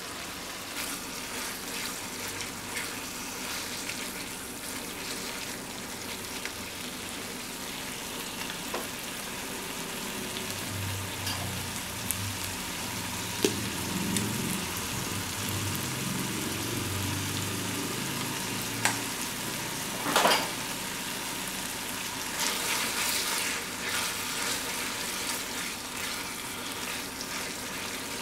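Spaghetti in tomato and beef sauce sizzling steadily in a frying pan while a wooden spatula stirs and tosses it, with a few sharp taps against the pan.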